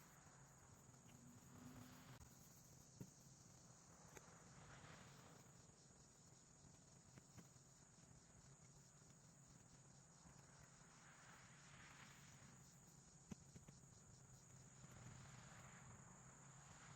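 Near silence with a faint steady high-pitched drone of insects and a few faint clicks.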